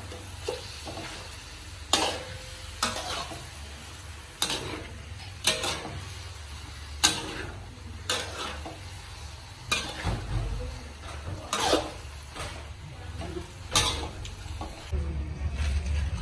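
Metal spatula scraping and clanking against a steel wok while eggplant and minced pork are stir-fried, a stroke every second or two over a steady sizzle.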